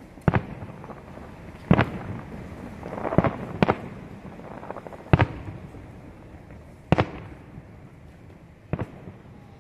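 Aerial fireworks shells bursting in a salute display: seven sharp booms spaced about one to two seconds apart.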